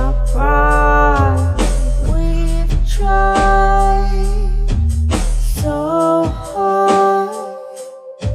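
A song with a sung vocal line over a heavy bass backing. About six seconds in, the bass drops out, leaving the voice and a held note.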